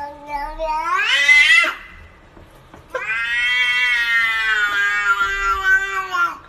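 Tabby-and-white cat giving two long, drawn-out yowls. The first climbs sharply in pitch at its end; the second starts about three seconds in and holds level, sinking slightly before it stops.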